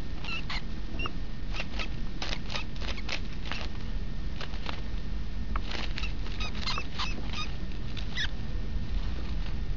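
A mouse squeaking in short, high squeaks that come in clusters, among sharp rustling clicks, over a steady low rumble.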